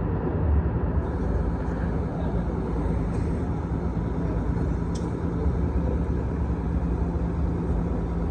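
Diesel bus engine idling steadily, a continuous low hum, with a single light click about five seconds in.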